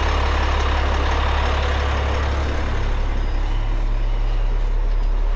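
Diesel engine of a semi-trailer truck idling: a steady low rumble that shifts slightly about halfway through.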